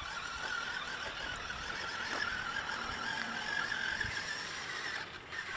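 Electric RC truck's motor and gears whining steadily as it drives through puddles, the high whine wavering slightly in pitch with the throttle over a hiss of wheels and water.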